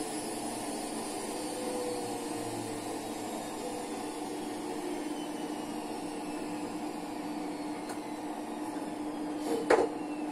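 Steady hum of a small motor, holding two even tones, with a brief loud noise about nine and a half seconds in.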